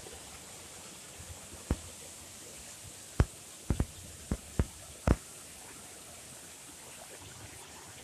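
Muddy floodwater flowing steadily along a rain-swollen channel, with a cluster of sharp, low thumps about two to five seconds in.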